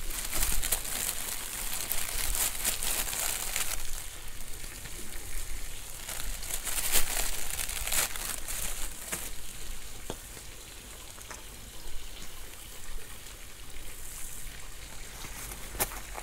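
Scallops sizzling in their shells on the coals, a crackling hiss with irregular pops, mixed with the crunch of a knife cutting through a crusty baguette.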